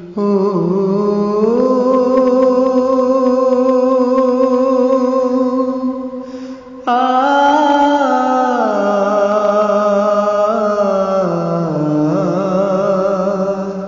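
A man singing a Bengali Islamic devotional song, unaccompanied, in two long held melodic phrases without clear words, the voice gliding between notes with a short breath between them.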